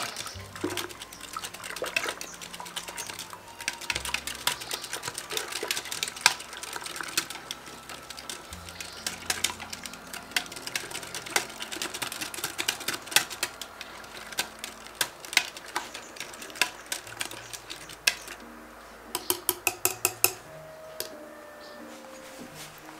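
A utensil clinking and scraping against a glass jar as thick cultured cream is stirred, with a quick run of clicks near the end. Soft background music plays underneath.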